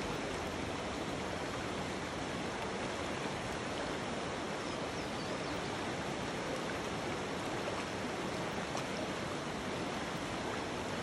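Fast-flowing river water rushing in a steady, even wash.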